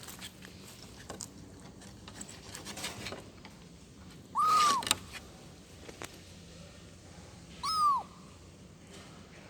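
Kitten meowing twice, short high calls that arch up and fall away, the second shorter than the first: a kitten calling for its mother.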